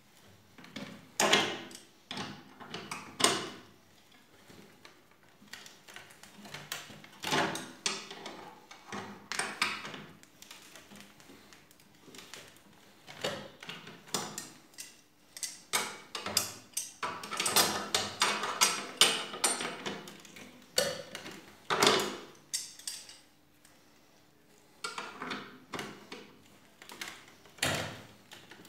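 Hand pliers turning a metal bolt in a wooden chair frame: irregular runs of metallic clicks and clinks as the jaws grip, turn and are re-set, with short pauses between.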